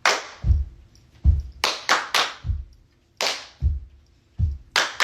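Cheer beat made by body percussion: foot stomps on the floor, heard as deep thuds, alternating with sharp hand claps in an uneven rhythm of about a dozen hits.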